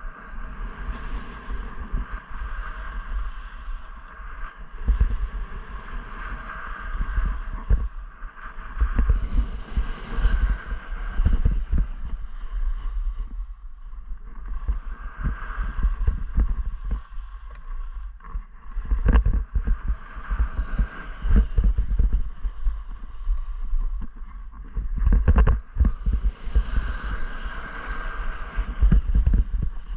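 Skis scraping and hissing over firm, tracked snow during a downhill run, with wind rumbling on the microphone and occasional knocks as the skis ride over bumps.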